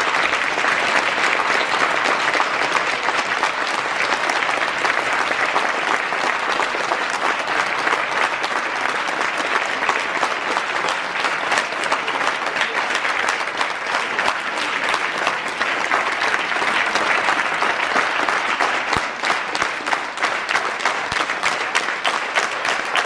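A crowd clapping continuously and densely, the clapping thinning into more distinct separate claps near the end.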